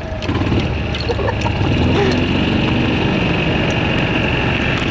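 Golf cart running as it drives across the fairway: a steady low rumble, with a steady high whine joining after about a second and a half.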